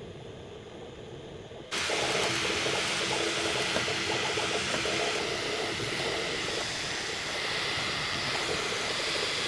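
Bambu Lab A1 3D printer running a print, played sped up: a dense whirring hiss that starts abruptly about two seconds in and carries on steadily.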